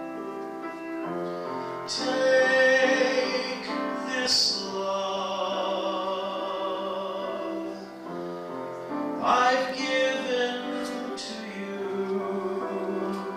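A solo voice singing a slow, sustained song with wide vibrato, over a keyboard accompaniment of held chords.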